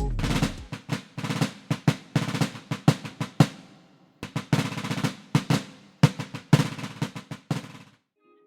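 Drums playing a fast solo passage of snare rolls and rapid hits, breaking off just before the end.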